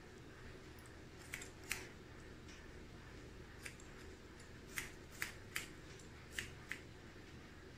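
Hair-cutting scissors snipping damp hair over a comb, about eight separate crisp snips at irregular intervals, over a low steady hum.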